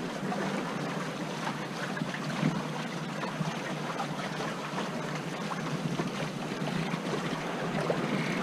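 Water rushing and splashing along the hulls of a Corsair F-27 trimaran sailing under spinnaker, a steady wash with small splashes, as the boat moves along at speed.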